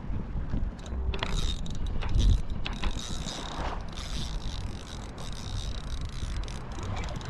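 Fishing reel mechanism clicking and whirring as it is worked, with scattered irregular clicks and wind rumbling on the microphone.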